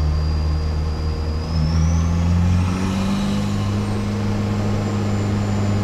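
Four-cylinder 1.6 turbodiesel engine of a MK1 VW Rabbit running under load, heard from inside the cabin. A high turbo whistle climbs about a second and a half in, peaks about three seconds in, then drops back and holds.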